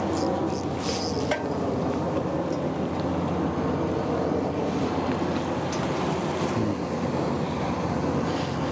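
A fishing boat's engine running steadily with a low hum, with a few light clicks in the first second or so.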